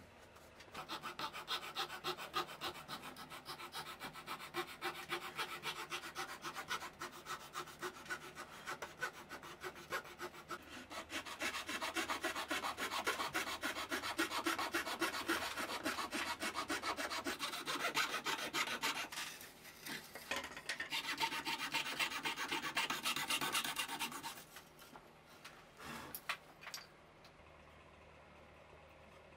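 Fret saw cutting a thin wooden blank held on a bench pin, with rapid, even back-and-forth strokes. The sawing dips briefly a little before two-thirds of the way through and stops about five seconds before the end, followed by a couple of light knocks.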